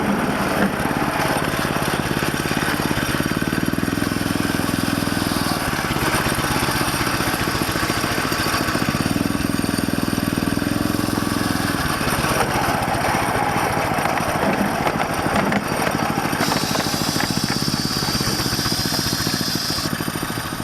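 Small petrol engine of a gas-mechanical miniature locomotive running steadily under way, its pitch rising and falling back twice as the throttle is opened and eased.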